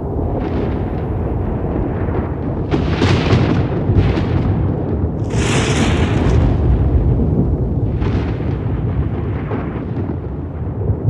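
Thunder rolling in a continuous deep rumble, broken by sharper crackling claps about three seconds in, strongest around six seconds in, and again near eight seconds.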